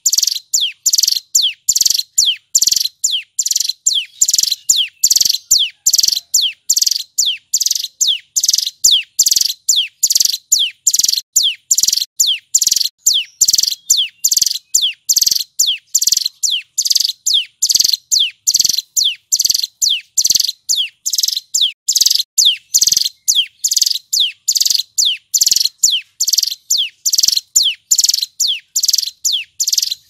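Male hill prinia (ciblek gunung) singing a long, unbroken run of loud, sharp, repeated notes, about two a second. Each note slides quickly down in pitch.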